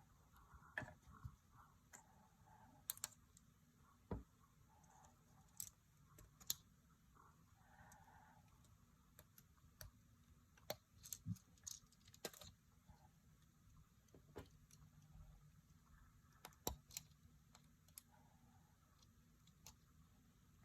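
Scattered quiet clicks and taps of small objects being handled, with faint rustling in places, typical of opening surprise eggs and their plastic capsules and wrappers.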